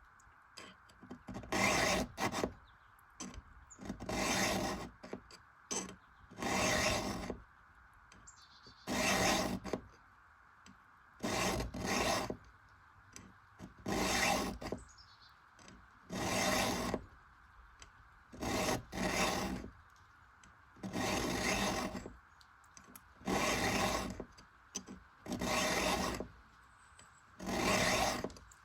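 Round chainsaw file rasping across the cutter teeth of an Oregon ripping chain during freehand sharpening. Slow, even strokes come about every two seconds, some led by a short lighter stroke.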